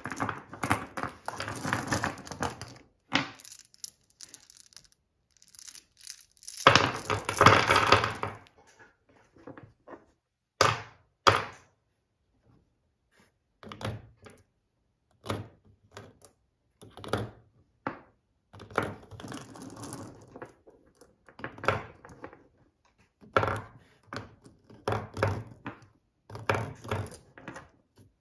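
Steel-cased .380 ACP cartridges clinking and clattering as they are handled and slid about on a wooden table and pushed into a plastic cartridge tray, in short irregular clicks and knocks. There is a longer stretch of rattling about seven seconds in.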